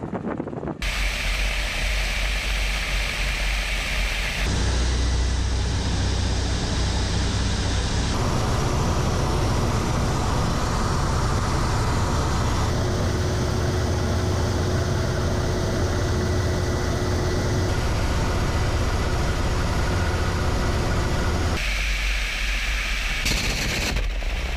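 Ka-52 attack helicopter in flight, its coaxial rotors and turbine engines heard as a steady loud rushing drone with a deep low rumble. The sound changes abruptly several times, as recordings from outside and on board are cut together.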